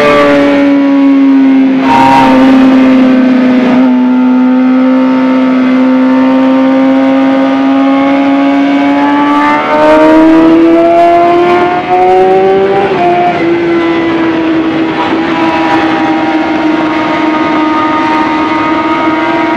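Suzuki GSX-R 750's inline-four engine heard from on board at track speed, with wind rushing past. The engine note holds steady, then climbs for several seconds under acceleration. About 13 seconds in it steps down a little in a quick upshift, then pulls on at a steady pitch.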